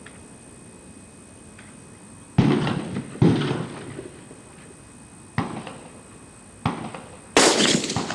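Five sharp rifle shots from a DPMS AR-15 in .223, each followed by a short echoing tail. The first two come under a second apart, and the last one is the loudest.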